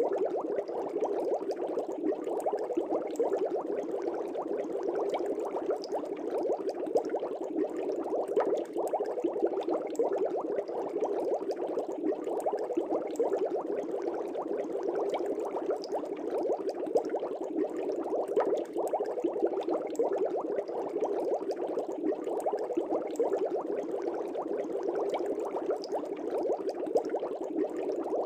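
Air bubbles streaming steadily through a fish tank's water, a dense and continuous bubbling.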